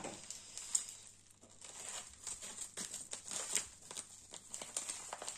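Plastic mailing bag crinkling and rustling as it is handled, in irregular crackles.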